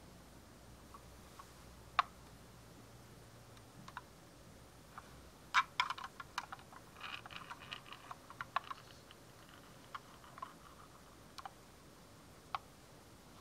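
Light clicks and taps from a small diecast metal model van being handled and turned in cotton-gloved hands: a single click about two seconds in, a quick flurry of them in the middle, then a few scattered ones.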